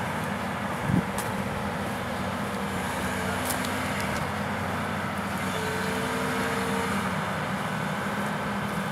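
Heavy machine engine running steadily, with a single knock about a second in.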